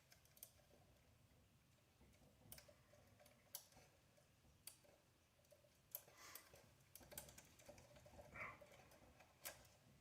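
Faint, scattered light clicks of small RC car parts being handled as a rear hub is fitted into the suspension arm with its shims, with a short squeak late on.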